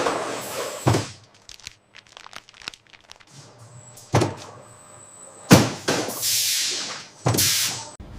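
Several separate thuds and knocks, the loudest about five and a half seconds in, some followed by a second or two of rushing noise that cuts off sharply near the end.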